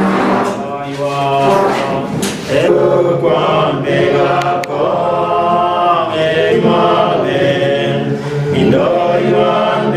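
Unaccompanied group singing of a hymn, in long held notes that move step by step.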